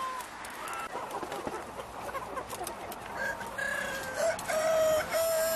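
A flock of chickens clucking and squawking, with short calls overlapping. From about three and a half seconds in come long, drawn-out crowing calls, which are the loudest sound.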